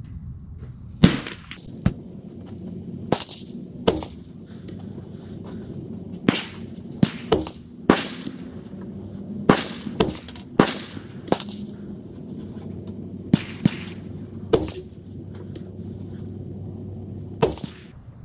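Rifle shots at a shooting range: about sixteen sharp cracks at irregular intervals, some louder than others. They include a .223 AR-pattern rifle with a 12.5-inch barrel firing a group of match ammunition.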